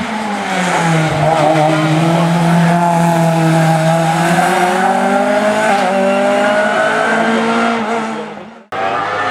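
Race car engine under load on a hillclimb, its note sagging slowly and then rising again. It fades away near the end and is followed by an abrupt jump to another rising engine note.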